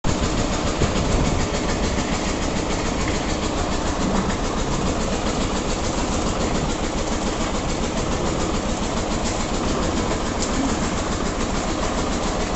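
Heavy engine-driven machinery running steadily with a fast, even, rhythmic clatter.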